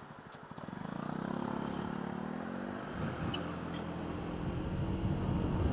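Honda Dio scooter engine rising from idle as it pulls away from a standstill and accelerates. The engine note climbs, eases off briefly about three seconds in, then builds again.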